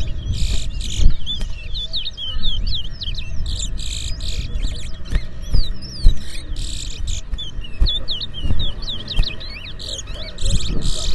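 Caged towa-towa (chestnut-bellied seed-finch) songbirds chirping and singing in rapid, short, high phrases one after another, over a low rumble.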